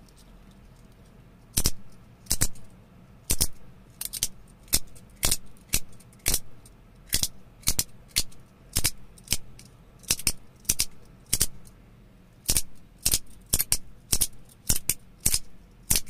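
Carbon fibre haptic coin clicking over and over as its two magnet-held halves are pushed out of line with the thumb and snap back together. Sharp clicks start about a second and a half in and come roughly one or two a second, some in quick pairs.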